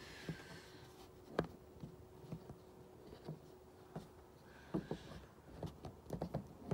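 Faint footsteps on snowy pavement, with scattered light clicks, a sharper knock about a second and a half in, and a quick irregular run of clicks near the end.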